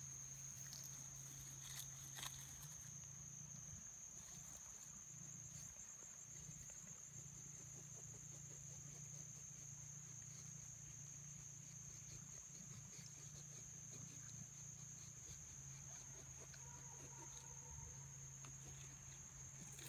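An insect, likely a cricket, trilling steadily at one high pitch, with a low steady hum underneath and occasional faint rustles.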